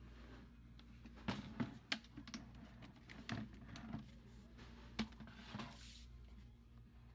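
Quiet shop interior: a steady low hum with scattered light clicks and knocks. There is a quick cluster about a second and a half in and a sharp click about five seconds in, followed by a brief hiss.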